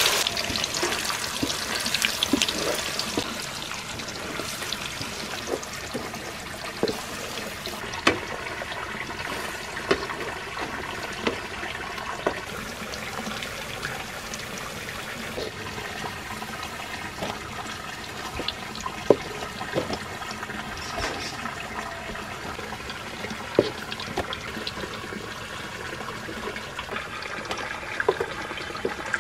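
Banana slices frying in hot oil in a wok: a steady sizzle with scattered pops and crackles, louder for the first few seconds before settling.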